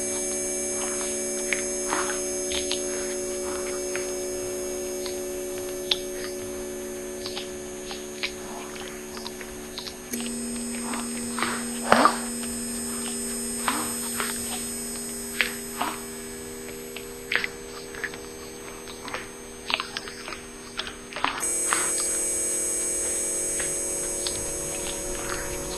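Sustained electronic drone of several steady tones held like a chord, shifting to a new chord twice, with short scattered clicks over it, the loudest about halfway through.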